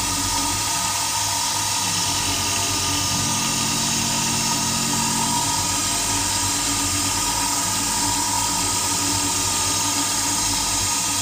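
Converted Titan TM20LV (G0704/BM20-type) CNC milling machine cutting billet aluminium with an end mill: a steady, high-pitched whine from the spindle and the cut, without a break.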